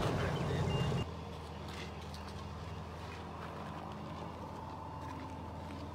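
Faint steady low hum with a few held tones under it, a little louder and noisier for the first second before it drops quieter.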